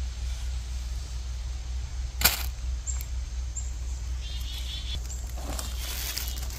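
Footsteps rustling over a forest floor of dry pine needles in the second half, with one sharp crack about two seconds in and a few faint high bird chirps. A steady low rumble runs underneath.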